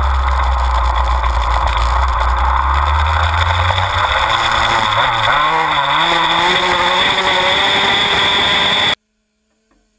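Honda dirt bike engine heard from a camera mounted on the moving bike, under heavy wind rush, its pitch rising and falling as the rider works the throttle through the middle of the stretch. The sound cuts off abruptly near the end.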